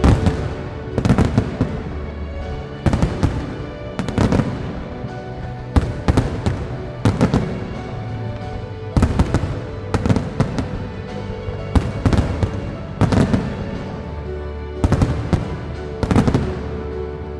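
Fireworks going off in a display, sharp bangs and crackling bursts coming every second or two, over steady music.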